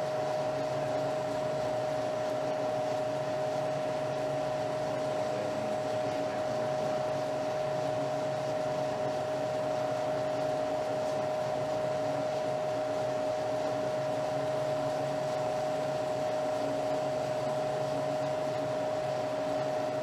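Refrigeration training rig with clear glass tubing running: a steady mechanical hum from its fans and compressor, with a pronounced steady whine above it.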